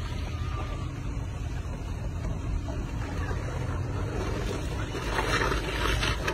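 Steady low rumble of a slow-moving towing vehicle on a snowy road, with wind buffeting the phone's microphone, a little louder near the end.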